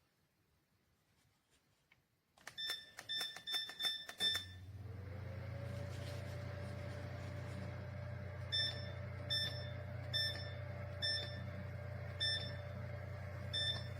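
An electronic appliance beeping rapidly about two seconds in. Then a motor starts, rising briefly in pitch, and runs with a steady hum, while single beeps sound about once a second through the second half.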